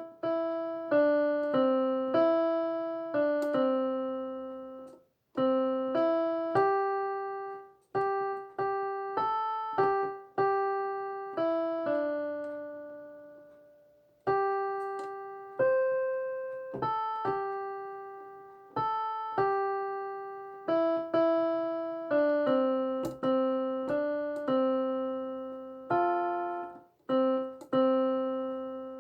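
Piano playing a slow, simple melody of single notes, each struck and left to ring and fade, with a few brief pauses between phrases.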